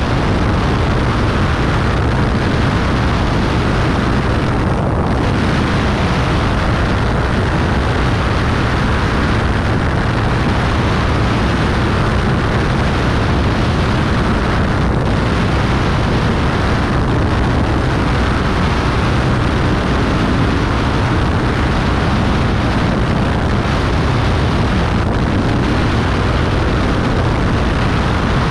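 Beechcraft Bonanza B35's six-cylinder engine and propeller running steadily, a constant drone, as the plane turns onto final approach and descends toward the runway.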